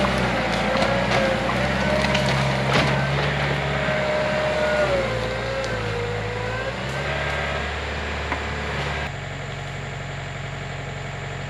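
John Deere 110 backhoe loader's diesel engine working under load, with a whine that rises and falls in pitch and branches cracking and snapping during the first half. About nine seconds in the load drops suddenly and the engine settles to a steady idle.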